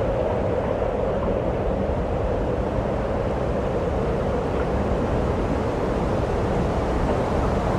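Steady wind and sea noise on a shore: wind rushing over the microphone over a constant wash of surf, with no single event standing out.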